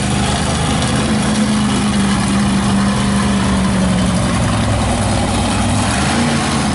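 Mega truck's engine running steadily as the truck drives through mud, the pitch dropping to a lower, steady note about four seconds in as it eases off.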